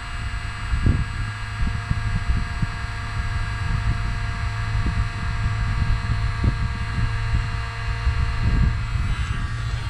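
Handheld heat gun running steadily, its fan motor giving a constant hum made of several fixed tones, with irregular low rumbling buffets of wind on the microphone underneath.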